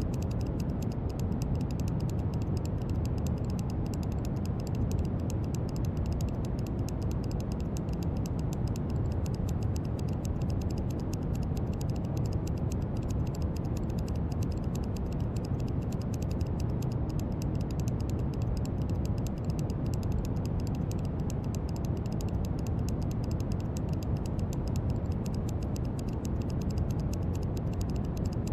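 Steady brown noise: an even, deep hiss, strongest in the low end, with a faint fine crackle on top.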